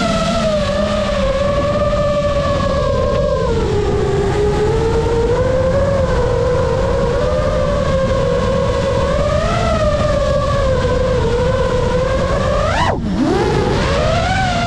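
GEPRC Mark 5 FPV quadcopter's motors and propellers whining, the pitch wavering with throttle over a low rumble. About 13 seconds in, the whine drops sharply and then climbs back up with a throttle chop and punch.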